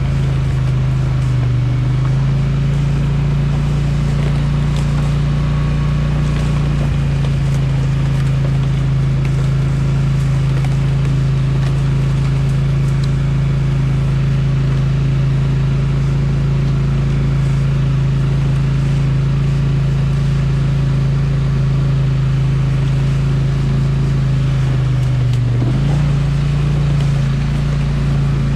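ATV engine running steadily at low speed on a trail ride. Its pitch dips briefly and picks back up near the end.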